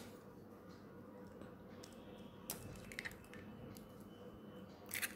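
An egg's shell being broken open with a spoon: a few faint sharp clicks and crackles about two and a half and three seconds in, and another short crackle near the end.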